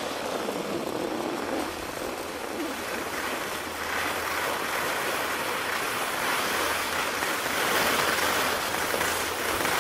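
Steady rushing wind noise buffeting the camera microphone, a little louder in the second half.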